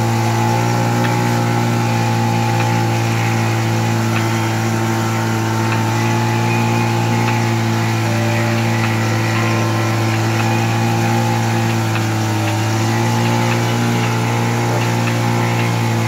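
A motorboat's engine running at a steady speed, a constant drone at one unchanging pitch.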